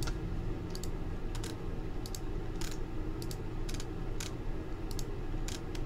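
Irregular light clicks from a computer mouse and keyboard, a dozen or so, several in quick pairs, over a low steady hum.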